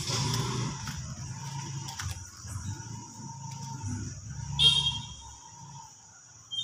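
Ambience of a large church interior: an uneven low rumble under a steady high thin whine, with a short high chirp about two-thirds of the way in.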